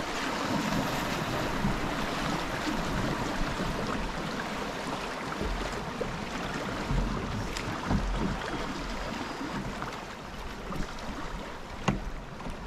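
River water rushing and splashing past a moving canoe, with wind rumbling on the microphone. A few sharp knocks come through, the loudest near the end.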